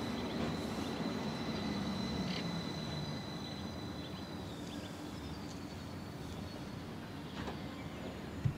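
Bombardier Flexity Swift light-rail tram running toward the listener on a curved track. A thin, steady high whine stops about four seconds in, and a low hum slides slowly down in pitch. A short thump comes near the end.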